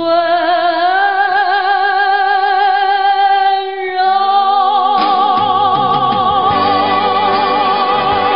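A man and a woman singing a slow Mandarin ballad duet live, holding a long note with vibrato that rises in pitch about a second in. A second long held note starts about four seconds in, and the band comes in under it a second later.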